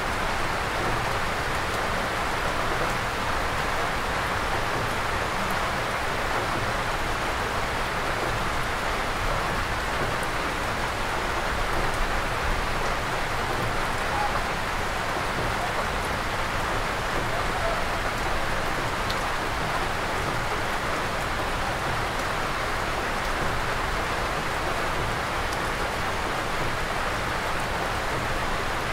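Steady, even rain falling on forest and a wooden roof, heard from under the eaves of a shelter.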